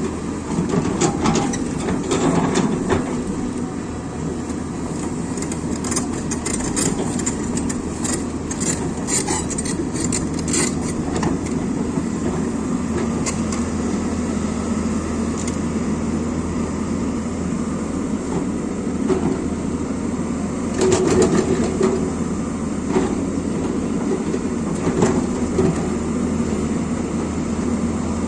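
Excavator diesel engine running steadily, with bursts of clanks and rattles from the machine's work several seconds in and again near the end.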